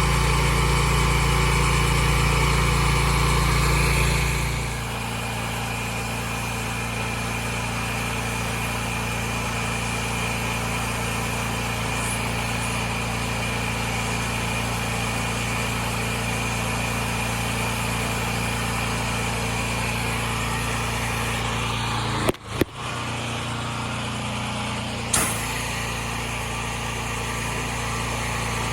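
Gas-engine pressure washer running steadily, with a haze of spray noise. About four and a half seconds in it drops to a lower, steady level. Near the end it briefly cuts out, and a short click follows.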